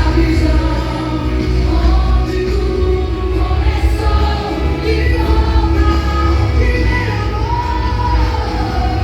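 Gospel song playing loudly: a sung melody over a band with a heavy bass line.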